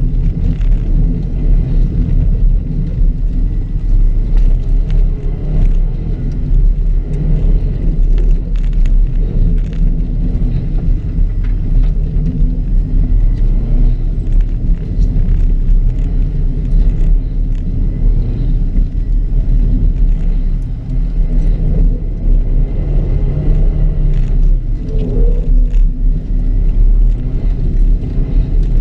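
2006 Subaru WRX driving hard on a loose dirt rallycross course: a loud, steady low rumble of engine and tyres on dirt, with scattered sharp ticks.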